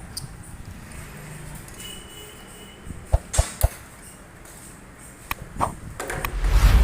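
Handling knocks and clicks on the motorcycle's front end: three quick sharp knocks around the middle, a couple of lighter clicks later, and a louder rustling thump near the end.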